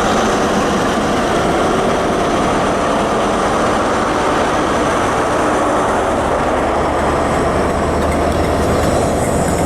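High Speed Train (InterCity 125) pulling away from the platform: the power car's diesel engine working under load as the coaches roll past, its low hum growing stronger about two-thirds of the way in, with a few wheel clicks near the end.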